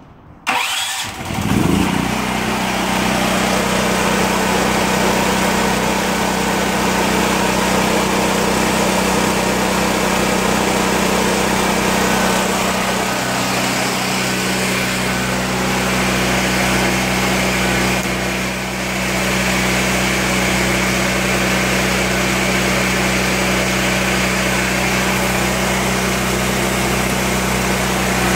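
Harbor Freight portable generator pull-started by its recoil cord, catching within about a second and a half, then running steadily; its note shifts slightly about thirteen seconds in.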